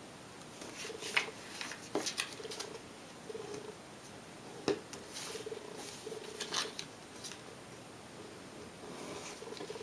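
A sheet of origami paper being folded and creased by hand on a tabletop: faint scattered rustles and crinkles with a few sharp clicks, the sharpest nearly five seconds in.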